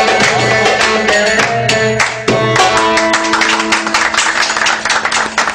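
Turkish fasıl music: an electric saz (bağlama) playing a melody over a fast darbuka and tef rhythm. The piece comes to its end near the close.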